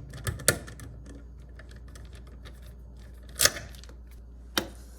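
A few sharp clicks and taps from a screwdriver and wires being worked at the doorbell transformer's screw terminals: two close together near the start, a louder one past the middle and one more near the end.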